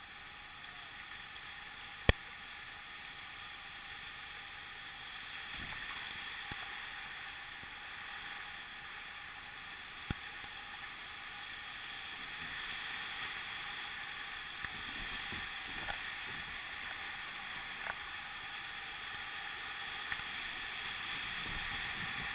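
Steady rush of river water through a rapid, growing slightly louder, with a sharp knock about two seconds in and a few fainter knocks later, typical of a paddle or hull striking.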